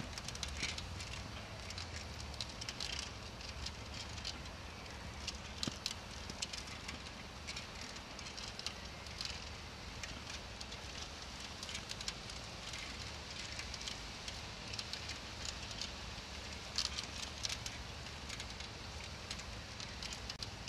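A bicycle rolling slowly over a grass lawn, with a person running close alongside, gives irregular crackling and ticking over a low, steady rumble.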